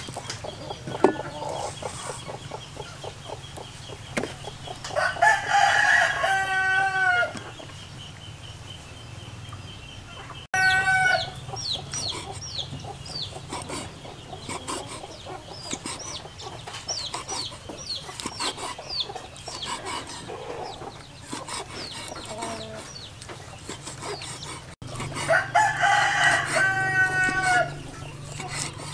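A rooster crows twice, each crow about two seconds long, with a shorter call between. Under the crows, a steel cleaver knocks repeatedly on a wooden cutting board as it chops grilled squid, and there is high chirping.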